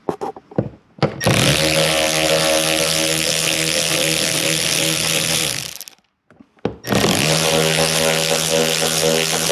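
Handheld power tool running steadily, spinning out the door panel's 10 mm fasteners. It starts a little after a second in, stops shortly before the middle, blips briefly, then runs again.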